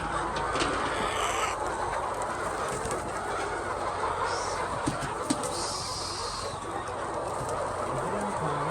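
A flock of laying hens clucking and calling together in a dense, steady chorus.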